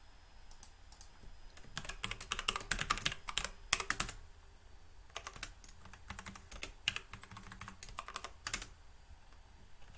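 Typing on a computer keyboard: irregular keystrokes, with a quick run of them from about two to four seconds in, then scattered short bursts of taps.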